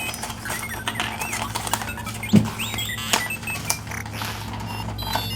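Electronic R2-D2 beeps and warbling whistles from an R2-D2 kitchen timer, mixed with scattered plastic clicks of handling and one thump a little over two seconds in.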